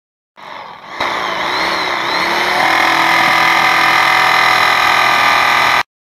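Electric jigsaw running and cutting a thin sheet-metal plate, its pitch wavering briefly before settling to a steady sound. It starts suddenly about a second in, after a quieter sound, and stops abruptly near the end.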